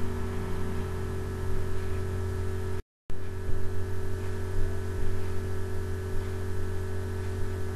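Steady electrical hum with faint hiss, made of several steady tones with the strongest low down. The sound cuts out completely for a fraction of a second about three seconds in, then the same hum resumes.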